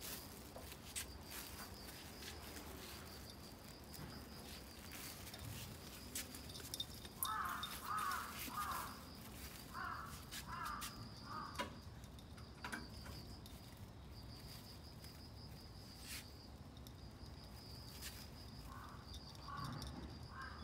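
Faint outdoor ambience: an insect's steady, high, pulsing buzz throughout, with a crow cawing in quick runs of three about seven seconds in, again about ten seconds in and near the end.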